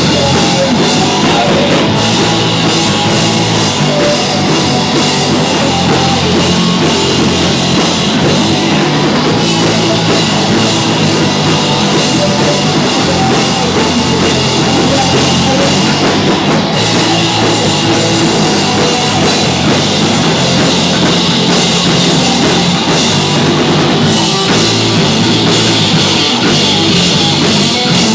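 Live rock band playing loudly, with a drum kit driving the song.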